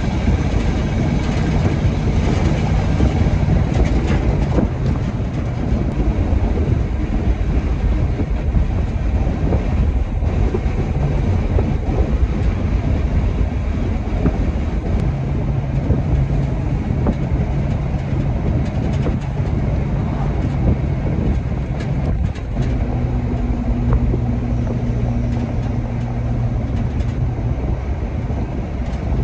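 Ex-US military truck's engine running under way, with a heavy low rumble and road noise; the engine note steps in pitch a few times, as with throttle or gear changes.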